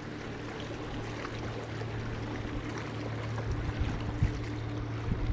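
A steady low hum aboard a bass boat, over water lapping and a few light knocks near the end.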